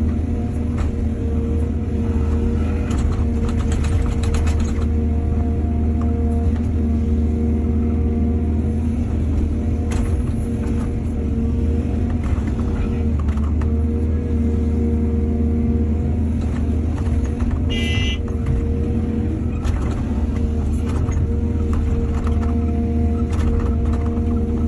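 Excavator's diesel engine running steadily at constant speed, with occasional metallic clanks and knocks from the machine at work.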